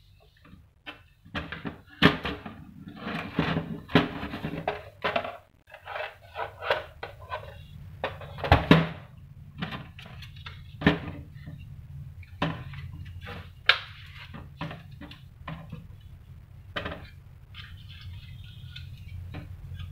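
Irregular plastic clicks, knocks and rattles of a GP-1125T printer's housing and parts being handled, as wiring is tucked inside and the print mechanism is moved into place, over a steady low hum. The clicks come thick and fast for the first ten seconds or so, then thin out.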